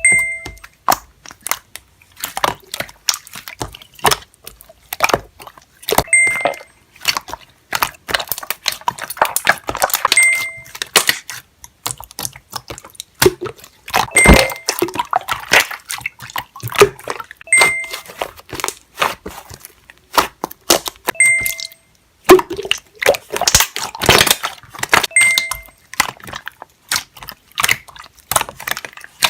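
Slime being squeezed and pressed by hand, giving sticky crackling and popping clicks in uneven bursts. A short ding sounds every three to four seconds over it.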